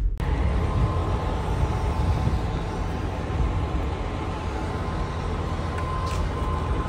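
Steady low rumble of idling diesel trucks, with a faint steady whine over it.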